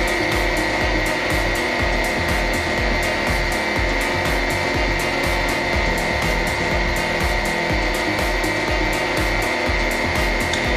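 Hydraulic press pump motor running with a steady high tone, under background music with a regular beat.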